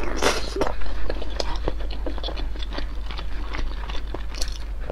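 Close-up eating sounds: a wet bite into a broth-soaked piece of spicy malatang in the first half-second, then a steady run of small chewing clicks and mouth smacks.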